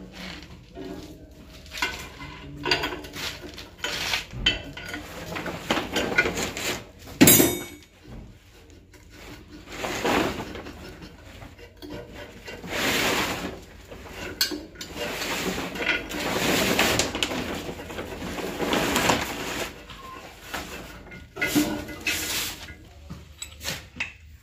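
Metal clanking and scraping as a spanner loosens the clamp on a mortar cube mould and the metal mould is worked free of the vibration machine's table. There is a sharp metallic knock about seven seconds in and several stretches of rubbing and scraping after it. The machine's motor is not running.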